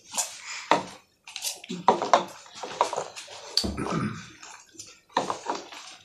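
Close-up eating noises: nan bread being torn and chewed, in irregular short bursts, with a few short muffled hums.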